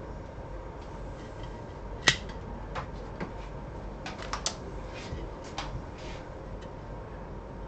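Irregular sharp clicks and taps of small hard objects being handled on a workbench, about a dozen of them, the loudest a single snap about two seconds in and a quick cluster a little after four seconds, over a steady faint hum.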